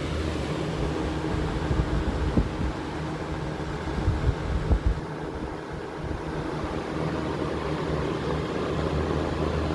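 Vintage Montvale (rebadged Air King) 16-inch box fan running on high speed, a steady motor hum under the rush of air from the blades; smooth running, its motor freshly oiled and still warming up from a cold start. A few low thumps come between about two and five seconds in.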